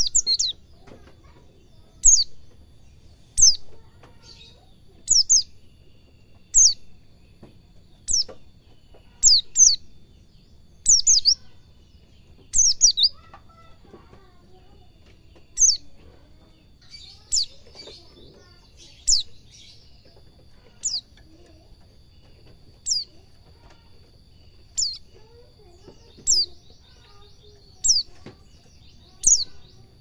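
White-eye (pleci) calling in short, sharp, high chirps that fall in pitch, one or two at a time about every one and a half to two seconds: the 'cingjuitan' calls of a pleci learning to sing.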